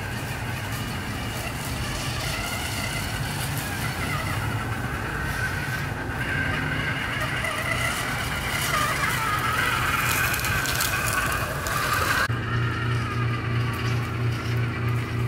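Electric drive motor and gears of a Costco Max Power 1:5-scale RC rock crawler truck whining as it drives, the pitch wandering up and down with the throttle. About twelve seconds in it cuts off suddenly to music with a steady pulsing beat.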